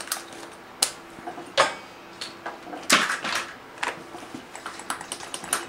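Scattered clicks and knocks of metal and plastic parts as gloved hands work at the fuel rail and injectors of a GM 3800 V6, with a few sharper knocks about a second and a half and three seconds in.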